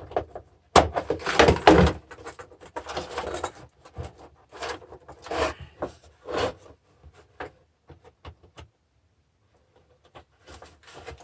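Clatter, scraping and clicks of a car battery charger's metal and plastic parts being worked apart by hand, loudest about a second in, with a short quiet spell near the end.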